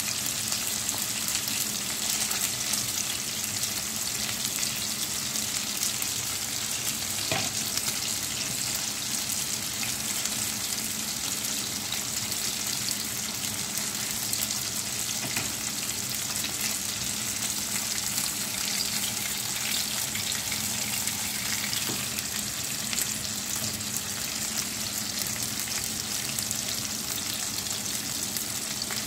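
Whole bisugo (threadfin bream) frying in hot oil in a pan: a steady, crackling sizzle, with one brief tap about seven seconds in.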